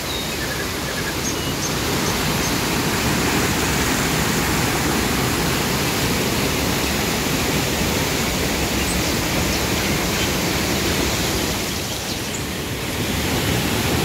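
Whitewater rushing and splashing down a rocky cascade of a waterfall, a steady loud noise that dips briefly about twelve seconds in.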